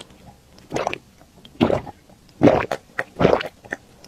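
A person gulping down a milky drink from a glass bowl close to the microphone: a run of separate swallowing gulps, about one every half second to a second.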